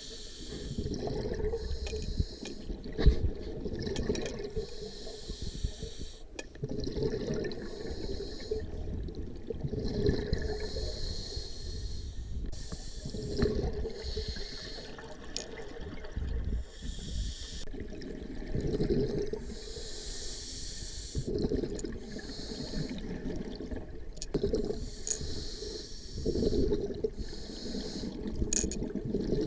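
Scuba diver breathing through a regulator underwater: a hiss on each inhale alternating with a burst of exhaled bubbles, about one breath every four to five seconds. A single sharp knock comes about three seconds in.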